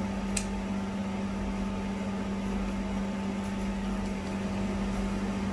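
Electric fan running with a steady hum and a constant low tone, with one light click about a third of a second in.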